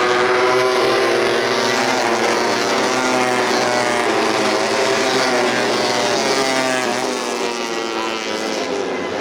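Several tuned 150cc four-stroke underbone racing motorcycles running at high revs, their overlapping engine notes rising and falling.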